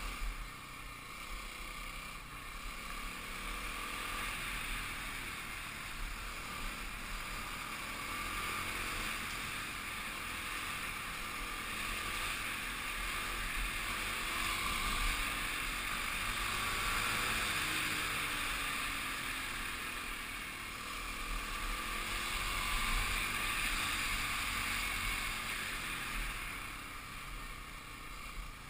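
Kawasaki KLX 250 single-cylinder four-stroke dirt bike engine running under way, its note rising and falling with the throttle, under a steady rush of wind and road noise on the microphone.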